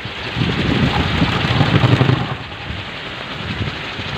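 Storm wind gusting hard with a hiss of rain, the gusts rumbling and buffeting, swelling about half a second in and easing after two seconds.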